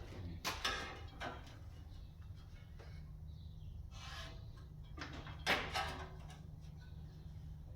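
Several separate knocks and clunks, as of metal parts and tools being handled and set down on a workshop bench, the loudest a little after half a second and at about five and a half seconds. A steady low hum runs underneath.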